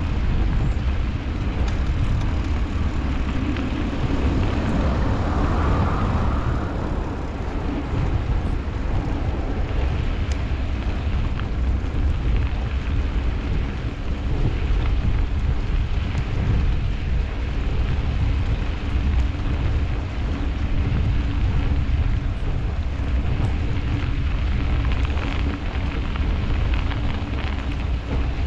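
Riding a bicycle through snow: a steady low rumble of wind on the microphone and tyres on the snowy road. A louder hiss swells and fades around five seconds in.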